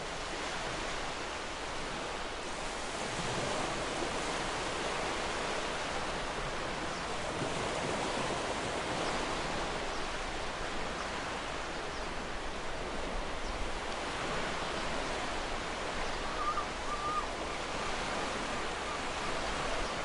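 Ocean waves washing gently on a shore: a steady rushing surf that swells and eases slowly. A brief, faint gull cry comes in near the end.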